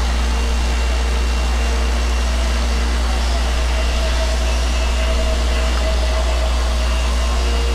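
A steady low engine-like hum, unchanging throughout, with a few faint steady tones above it.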